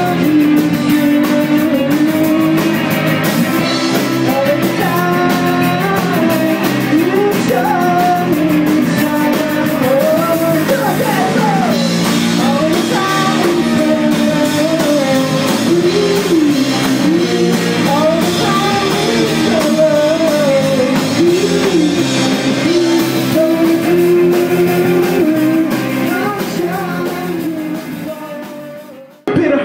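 Rock band playing, with guitar and drums under a bending melody line; the music fades out near the end.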